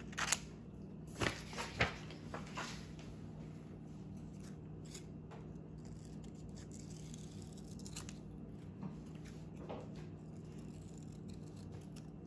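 Scissors snipping green construction paper, cutting out a small leaf: a few sharp snips in the first two seconds, then fainter, scattered snips.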